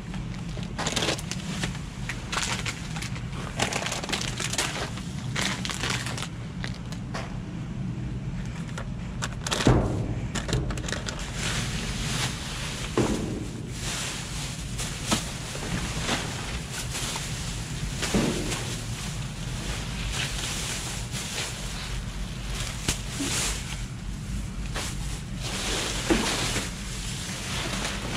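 Plastic bags and bags of chips crinkling and rustling in irregular bursts as they are grabbed and shifted in a dumpster, with a louder thump about ten seconds in. A steady low hum runs underneath.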